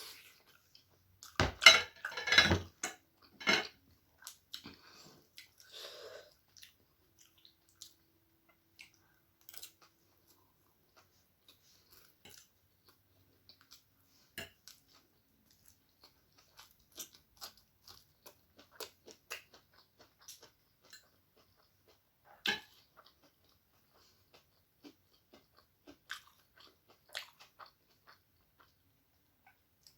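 A person eating egg chow mein close to the microphone. About two seconds in comes a loud cluster of clicky bites lasting a couple of seconds, followed by soft, scattered chewing clicks.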